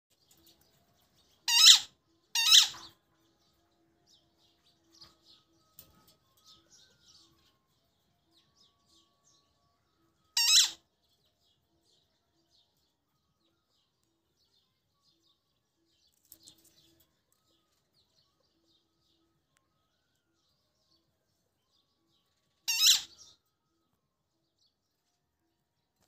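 Male Alexandrine parakeet giving four short, loud, shrill screeches: two close together about a second and a half in, one about ten seconds in, and one near the end. Faint soft chirps come in between.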